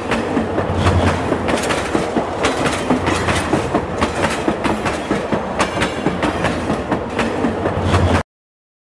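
Battery-powered toy train running on a plastic track: its small motor whirring under a rapid clatter of wheels and couplings. It cuts off suddenly near the end as the train stops.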